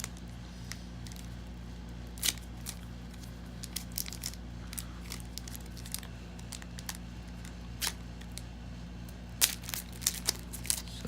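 Foil wrapper of a Pokémon booster pack crinkling and tearing in sporadic crackles as it is worked open with difficulty, with a cluster of sharper crackles about nine and a half seconds in. A steady low hum runs underneath.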